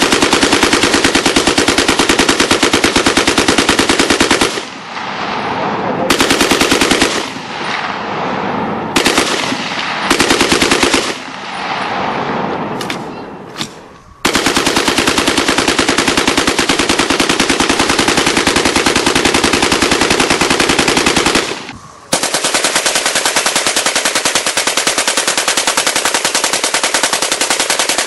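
A Browning M1917 water-cooled machine gun firing long bursts of automatic fire. The bursts are broken into shorter runs a few seconds in, then come back as two long bursts, the first about seven seconds long, split by a short pause.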